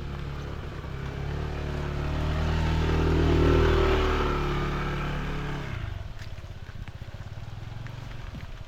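A motor vehicle engine passing close by: it grows louder to a peak about three and a half seconds in, then fades away, its pitch dropping slightly as it goes past.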